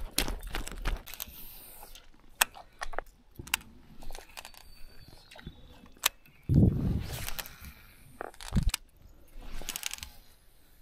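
Footsteps crunching on loose gravel and shale for about the first second, then scattered sharp clicks and knocks, with one louder dull thump of handling noise about six and a half seconds in.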